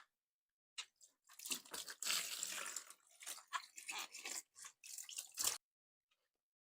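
Water balloon being squeezed and popped: about five seconds of crackling, wet noises ending in one sharp pop.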